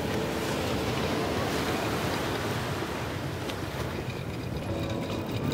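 Wind buffeting the microphone over a steady rush of sea surf, with no distinct events.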